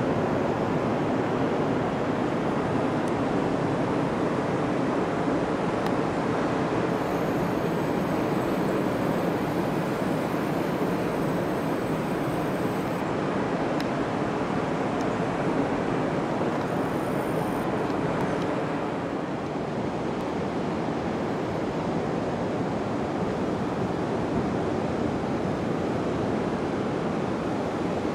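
Ocean surf breaking on a sand beach: a steady, even rush of waves that dips slightly about two-thirds of the way through.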